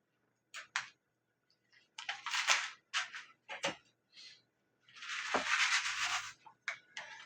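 Brief rustling and scraping noises from kitchen handling: several short ones, then a longer, louder one about five seconds in.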